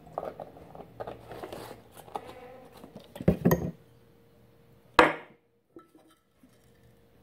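Kitchen things being handled and set down on a table: rustling and clattering of a carton and bowls over the first few seconds with two heavy knocks a little after three seconds, then one sharp knock about five seconds in, the loudest sound, followed by a few faint ticks.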